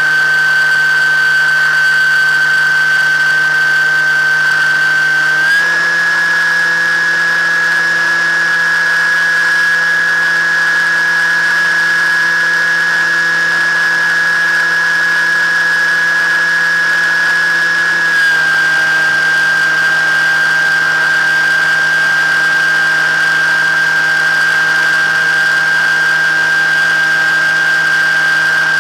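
Electric motor and propeller of an FPV model aircraft, whining steadily as heard through the onboard camera. The pitch steps up slightly about five seconds in and drops back about thirteen seconds later, a small throttle change.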